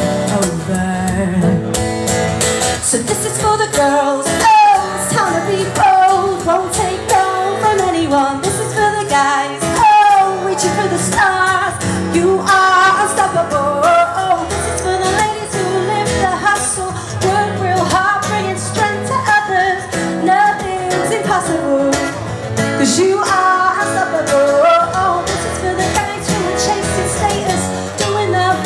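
Live pop song: a woman singing into a microphone over strummed acoustic guitar.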